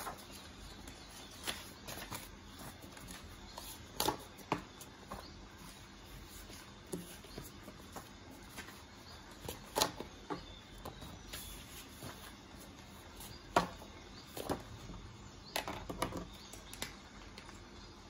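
Printed paper notes being handled and turned, a string of irregular short rustles and taps, over a faint steady rainforest ambience.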